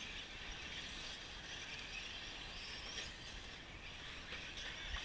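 Electric RC truggies racing around a dirt track, their motors whining faintly over a steady hiss.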